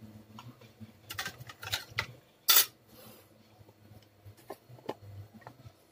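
Small tools clicking and clattering on a workbench during board rework, over a faint low hum, with a louder short clatter about two and a half seconds in.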